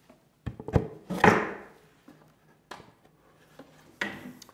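Wooden knocks and thunks as the glued plywood toolbox top is pressed and seated onto its box-jointed sides: a quick cluster of sharp knocks, the loudest just over a second in, then two more spaced out.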